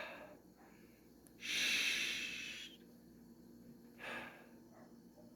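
A person breathing heavily through the mouth: three separate breaths, the loudest and longest a hissy breath of over a second starting about a second and a half in.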